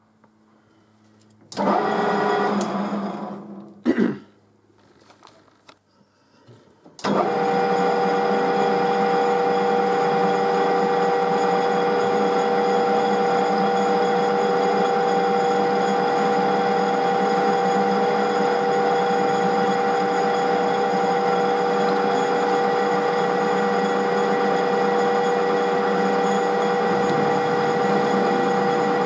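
Metal lathe starting abruptly and running steadily at speed, with a constant whine from its drive. Before it starts, a short loud sound dies away over about two seconds, followed by a sharp knock.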